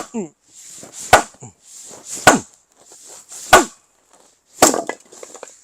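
Axe blows splitting firewood, a sharp crack about once a second, five in a row.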